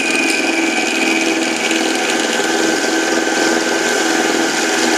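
A 7x10 mini lathe running steadily, its motor and gears whining with several steady tones, while a milling cutter takes a deep pass of about 15 to 20 thousandths into the workpiece.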